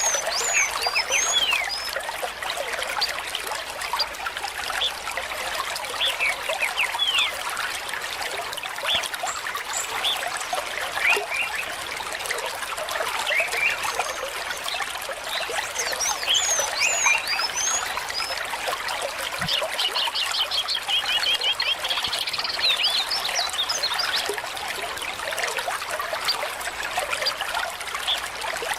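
Water trickling steadily at a pond, with many birds chirping in short, quick calls throughout; about two-thirds of the way in, one bird gives a fast trill of repeated notes.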